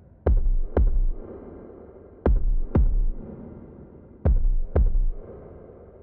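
Synthesized heartbeat of deep electronic kick-drum thumps, a lub-dub pair every two seconds, each thump dropping fast in pitch, over a faint low drone.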